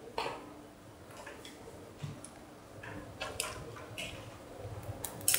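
Chalk on a chalkboard as circles are drawn: scattered short ticks and scrapes, with a faint steady hum underneath.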